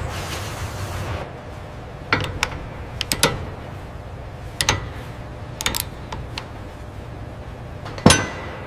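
Scattered sharp metallic clicks and clanks of a wrench working a metal fitting, the loudest near the end, over a low machinery hum that eases off after about a second.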